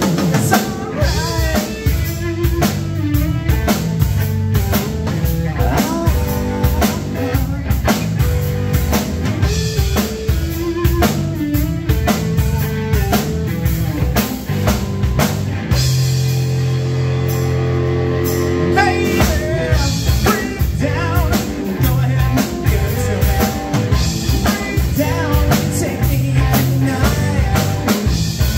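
Live rock band playing: electric guitar, electric bass and drum kit, with sung vocals. About sixteen seconds in the drums drop out for a few seconds under a held chord, then the full band comes back in.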